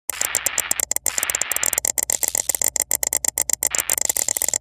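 Electronic glitch sound effect for an animated end card: a rapid, stuttering run of sharp clicks over a hiss of static, with a thin steady high tone, cutting out briefly a couple of times.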